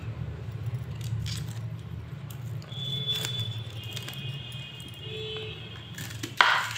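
Red onion being peeled by hand and with a small kitchen knife: faint crackle and rustle of the dry, papery skin over a steady low hum, with a short louder rasp near the end as the knife cuts into the onion.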